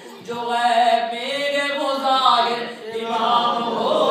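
A male voice chanting an Urdu devotional recitation in long, drawn-out notes that bend slowly up and down.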